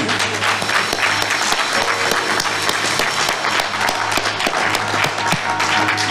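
A congregation applauding with steady hand-clapping, with instrumental music playing underneath.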